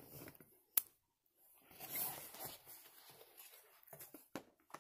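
Quiet handling of cosmetics packaging: one sharp click a little under a second in, then soft rustling and a few light clicks.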